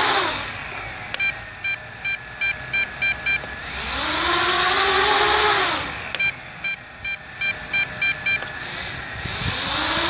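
Homemade cardboard quadcopter's four small electric motors and propellers whining. They spin down at the start, spin up and hold for a couple of seconds about four seconds in, spin down again, and start rising once more near the end, the pitch rising and falling with the throttle. Each lull holds a run of about seven short electronic beeps.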